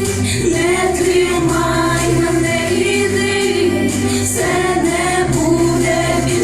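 A vocal ensemble singing a song in harmony over an instrumental accompaniment with a steady bass line.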